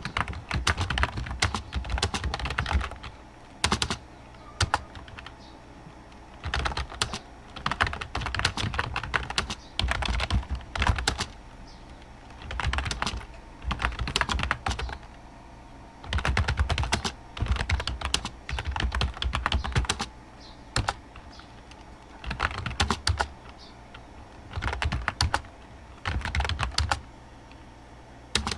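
Typing on a computer keyboard: quick runs of key clicks lasting a second or two, broken by short pauses.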